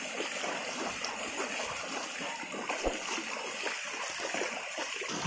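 A pair of bullocks and their cart wading through a shallow stream: hooves and wheels churning the water in a continuous run of irregular splashes, with one heavier thud about three seconds in.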